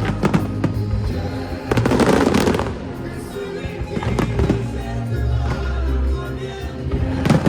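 Aerial fireworks bursting over a musical soundtrack: scattered bangs, a dense volley of crackling reports about two seconds in, and a sharp bang near the end.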